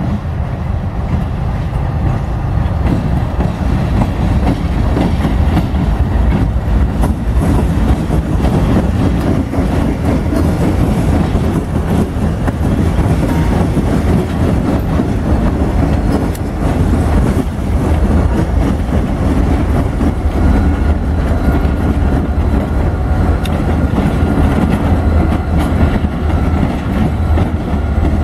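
A light-engine consist of two GE C40-8 and two EMD GP40-2LW diesel-electric locomotives passing close by, diesel engines running and wheels rolling on the rails. The sound swells slightly in the first couple of seconds as the lead units come alongside, then holds steady and loud as the units go by.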